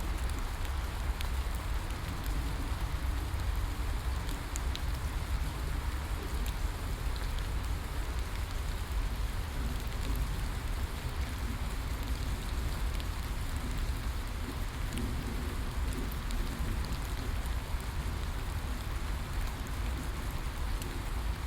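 Steady rainfall in a rainforest, an even hiss of rain with scattered small drop ticks and a deep low rumble underneath.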